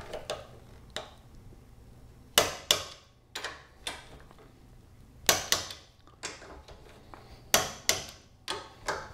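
Torque wrench tightening the VW swing-axle spring plate bolts to 30 foot-pounds: sharp metallic clicks in small groups of two or three, recurring every second or two.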